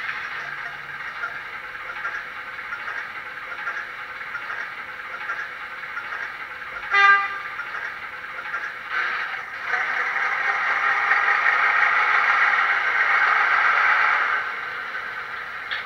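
Heljan OO gauge Class 05 diesel shunter model playing its Mr Soundguy DCC sound file through a small 18x13 speaker: the engine running steadily, a short horn toot about seven seconds in, then the engine note rising and working harder for about four seconds before dropping back near the end.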